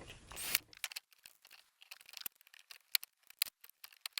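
Small tools and parts being handled on a workbench: a brief rustle about half a second in, then a string of light, irregular clicks and ticks.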